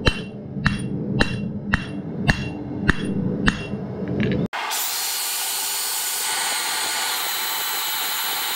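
Hammer blows on hot steel on an anvil, about two a second over a steady hum. About halfway through it cuts abruptly to a portable bandsaw running steadily as it cuts through a steel bar.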